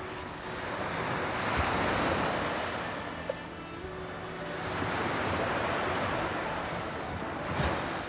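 Sea waves breaking and washing up on a sandy beach, the surf swelling and fading twice. A brief knock near the end.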